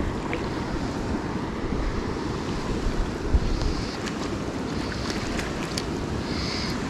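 Wind blowing across the microphone: a steady rushing rumble, with a few faint short clicks.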